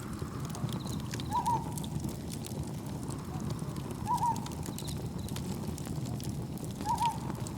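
Wood campfire crackling with scattered sharp pops over a steady low rush of wind and gentle waves. A short two-note call repeats three times, about every three seconds, and is the loudest sound; faint high insect chirps sit in the background.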